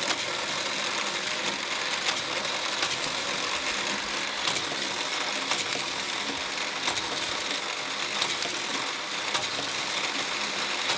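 Motorised booster of a Fast Lane toy car racing track whirring steadily, with small toy cars clicking and rattling along the plastic track.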